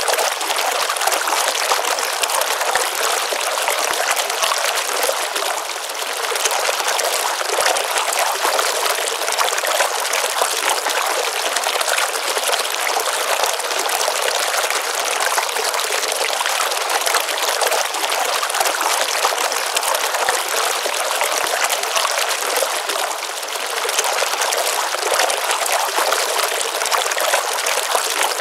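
Small stream of water at a pond pouring and trickling steadily, a continuous even rush of running water.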